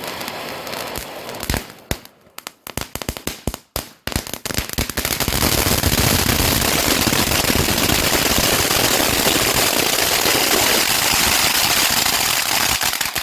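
First Class cone fountain firework burning with a steady hiss, breaking into scattered sharp crackles about two seconds in. From about five seconds in the crackles run together into dense, loud crackling.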